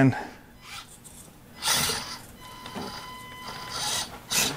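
The Axial SCX24 micro crawler's small electric motor and drivetrain whining at a steady pitch for about a second, between two short rushing scuffs as the truck slips on the climb.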